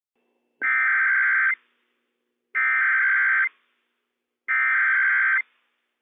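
The EAS SAME digital header from a NOAA Weather Radio broadcast: three identical bursts of data tones, each about a second long and about two seconds apart, with silence between them. The bursts encode the opening of a Child Abduction Emergency (CAE) alert.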